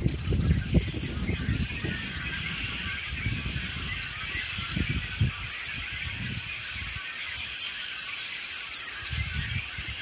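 A large flock of small songbirds chattering all at once, a dense continuous chorus of overlapping chirps. Low rumbles come and go in the first second, around five seconds in and near the end.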